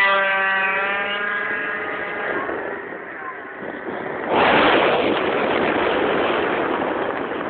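Tuned two-stroke Derbi Variant moped engine held at high revs, its pitch slowly sinking and fading over the first few seconds. About four seconds in, a sudden loud, steady rushing noise takes over.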